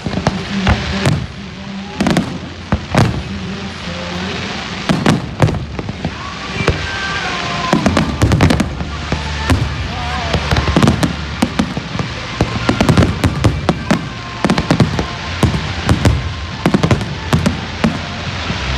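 Aerial fireworks display: shells launching and bursting overhead, dozens of sharp bangs and crackles in quick, irregular succession, coming thicker in the second half.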